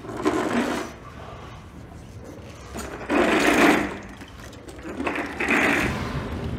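Three sweeping strokes of a long-handled broom across a hard, polished floor, each a swish lasting about a second.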